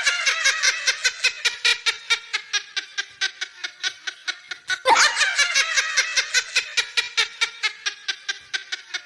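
Laughing sound effect: a fast run of high ha-ha pulses, about seven a second, that starts over with a fresh burst about five seconds in.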